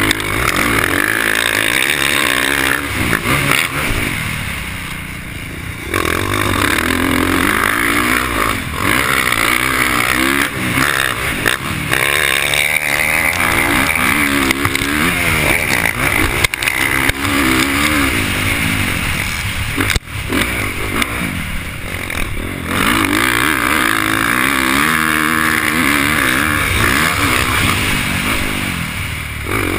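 Dirt bike engine heard close from the rider's helmet camera, revving hard up and down as the throttle is worked through the turns. The throttle is shut briefly about 4 seconds in and again around 20 and 22 seconds before the engine winds back up.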